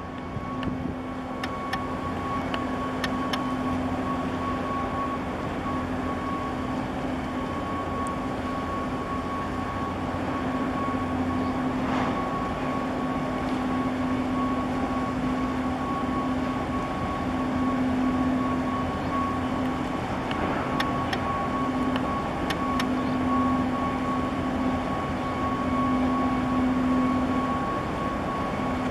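A large container ship's engines and onboard machinery, running as it passes close by. It makes a steady drone with a constant low hum and a fainter, higher steady tone.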